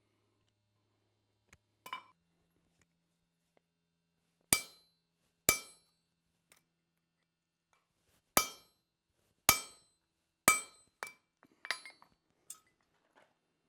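Blacksmith's hand hammer striking a knife blank on an anvil, each blow ringing. About six heavy blows come a second or more apart, then a quicker run of lighter taps near the end.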